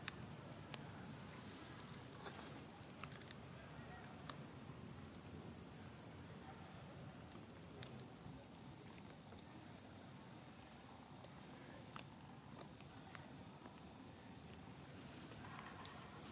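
Insects droning steadily at two high, unchanging pitches, with a few faint scattered clicks.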